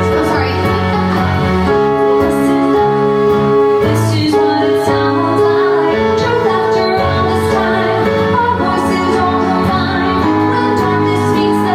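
Instrumental passage of a pop-style song: sustained chords that shift every couple of seconds, with light percussion ticks on top.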